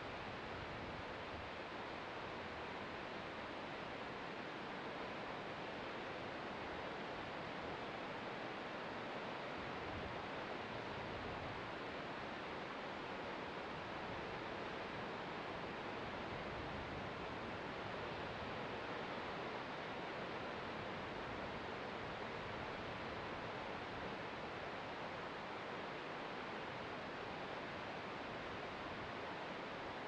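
Distant ocean surf heard from a clifftop overlook: a steady, even wash with no single wave breaking out.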